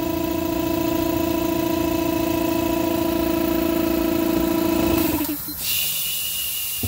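Air blower motor running with a steady hum, feeding air through a hose into sand to fluidize it. About five seconds in the hum drops out and a high hiss takes over.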